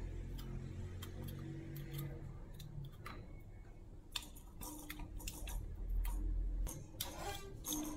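Scattered light plastic clicks and taps from a spring-mounted cat toy as a cat bats its ball on a string, with a short rattle near the end, over a low steady hum.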